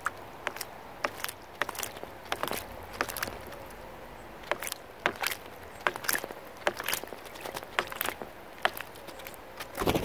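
Eurasian blackbird bathing in a shallow birdbath: a long run of quick, irregular splashes as it flicks water with its wings and body. A louder flurry comes near the end as it leaves the bath.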